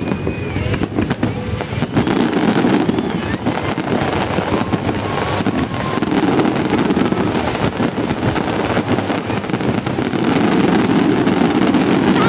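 Fireworks display bursting in rapid succession: a dense run of bangs and crackles that grows louder about two seconds in.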